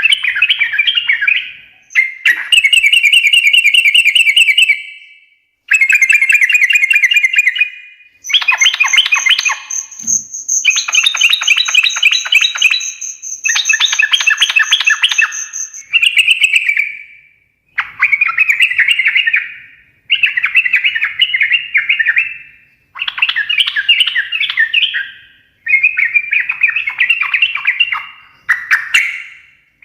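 Yellow-vented bulbul (trucukan) singing loudly in its chattering 'ngekek' style: about ten rapid, scratchy phrases of two to three seconds each, with short breaks between them. A thin high whistle is held over the song for several seconds in the middle.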